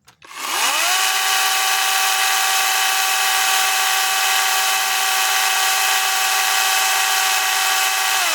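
ReliaRoads 40-volt battery chainsaw winding up to full speed, running with a steady electric whine and chain rattle, then winding down and stopping near the end. The pitch holds level throughout, as when the saw runs without cutting.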